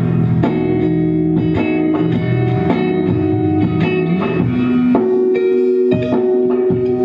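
Live band music: guitar playing with bass and drums, an instrumental passage with no singing.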